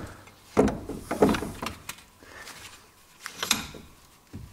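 Brake caliper piston being pressed back into its bore with a compression tool: a handful of short metallic clicks and knocks, most in the first two seconds and one more about three and a half seconds in. This is the final compression of the freshly greased piston.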